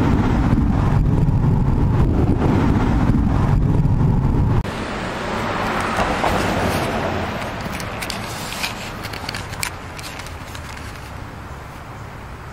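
Outdoor street ambience: a heavy low rumble that cuts off abruptly about four and a half seconds in. After it, a car passes by, rising and fading around six seconds in, followed by a few faint clicks.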